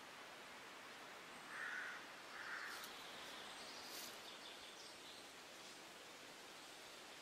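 Quiet outdoor ambience with a steady hiss, two short bird calls about one and a half and two and a half seconds in, and a couple of light clicks a little later.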